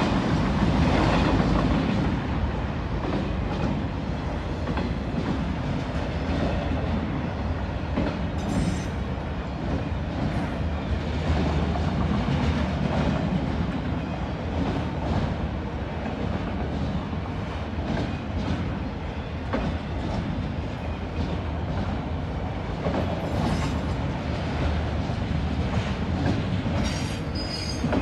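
CSX autorack freight train rolling past: a steady rumble with the wheels clicking over rail joints and a few brief high wheel squeals, the clearest near the end.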